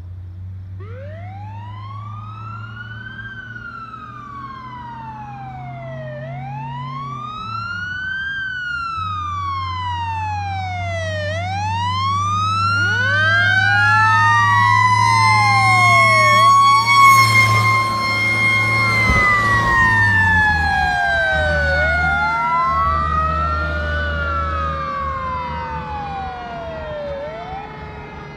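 Sirens of a 1968 Seagrave FWD fire truck: a wailing siren sweeping up and down about every five seconds, joined midway by a second siren tone that rises, holds and then slowly falls away. Beneath them runs the truck's 500-cubic-inch International straight-six gas engine. The whole sound swells to its loudest past the middle and then fades.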